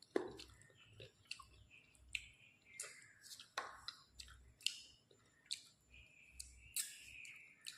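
Close-miked chewing of food, with wet mouth smacks and clicks about twice a second.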